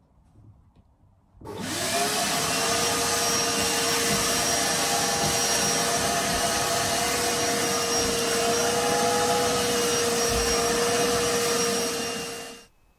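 A wet vac switched on about a second and a half in. Its motor spins up to a steady tone over a loud rush of suction as the hose draws water out of a flooded boat bilge. It is switched off near the end.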